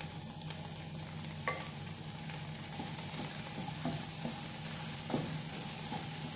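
Chopped vegetables sizzling in oil in a pan with a steady hiss, stirred with a wooden spatula that scrapes and knocks against the pan now and then.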